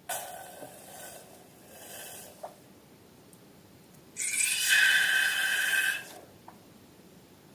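Air hissing out of a balloon in two bursts: a softer rush at the start, then a louder one about four seconds in that carries a steady high squeal for roughly two seconds. A small click comes between them.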